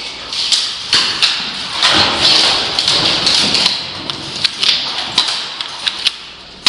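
Irregular sharp clicks and taps over a steady rustling hiss.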